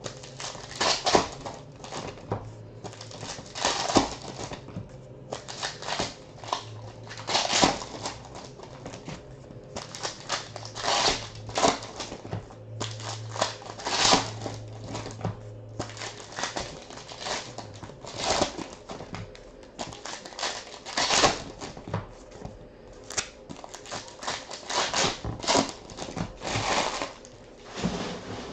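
Foil trading-card pack wrappers being torn open and crinkled, with the cards handled: irregular rustling and crackling, over a low hum that stops about two-thirds of the way through.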